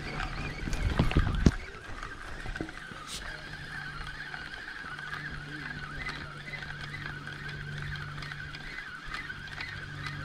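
Penn Fierce III spinning reel being cranked to retrieve line, a steady, slightly wavering whir. In the first second and a half there are loud thumps and knocks of the rod and reel being handled.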